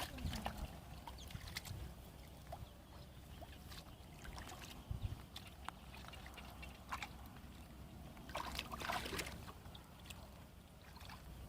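Faint sloshing and trickling of water with scattered small knocks and drips, and a louder splash about nine seconds in.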